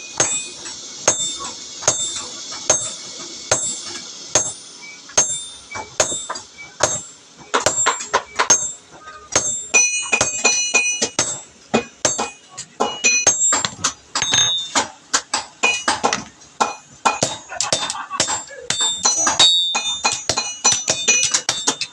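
Hand hammer striking a machete blade on an anvil, one ringing metallic clang per blow, as the tip is flattened. The blows come about two a second at first, then faster and less regular from about eight seconds in.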